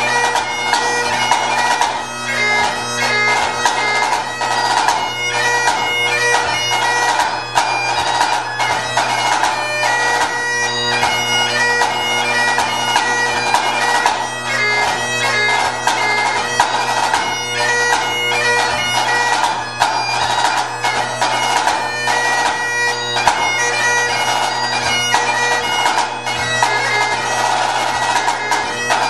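Great Highland bagpipe playing a tune over its steady drones, with a pipe band snare drum playing rapid, closely spaced strokes alongside it.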